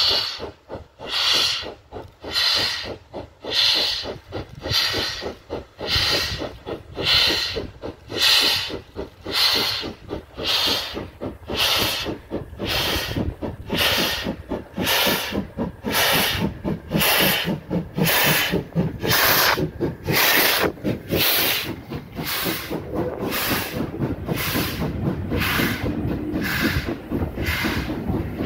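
Ivatt Class 2MT 2-6-2 tank locomotive 41312 working steam, its exhaust beating in a steady chuff of about one and a half beats a second, each beat a hissing blast, with a low rumble that grows as it nears. Near the end the chuffs give way to the steady rumble of coach wheels on the rails as the train passes.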